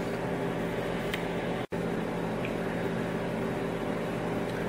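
Steady low droning hum with an even hiss over it, with a split-second dropout to silence about one and a half seconds in.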